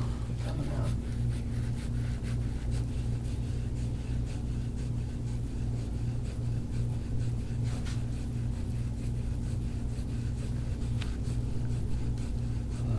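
Steady low hum from a machine in the treatment room, with faint soft scraping of a gua sha tool over the skin of the back.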